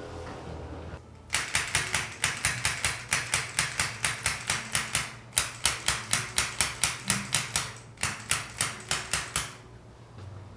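A rapid series of sharp clicking strikes, about four a second, in three runs with brief breaks between them, from percussive work on the body during a chiropractic treatment.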